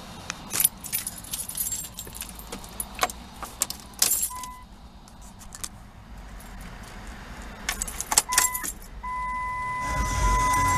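Keys jangling and clicking at the ignition of a 2005 Dodge Grand Caravan, with a short electronic beep about four seconds in. Near the end a steady electronic tone comes on and a low rumble starts as the key is turned.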